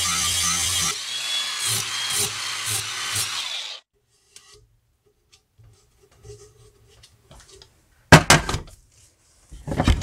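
Angle grinder with a flat disc grinding the cutting edge of a steel lawn mower blade, in back-and-forth passes. The grinding cuts off suddenly about four seconds in. A few loud knocks follow near the end.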